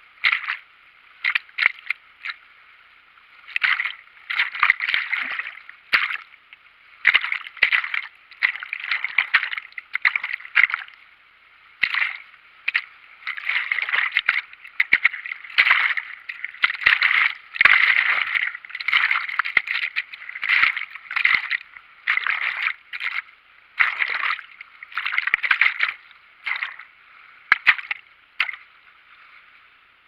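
Fast river water sloshing and gurgling against a camera half under water at the waterline, in uneven surges about a second apart with short lulls between them.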